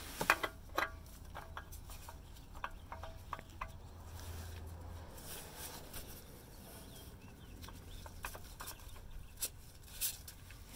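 Quiet handling noises as a FRAM spin-on oil filter is lifted off the drain pan and threaded onto its mount by gloved hands: scattered light clicks and taps.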